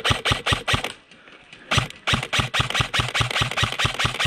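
Airsoft rifle firing a rapid string of shots, about six or seven a second. A short string is followed by a pause of about a second, then a steady run of shots through the rest.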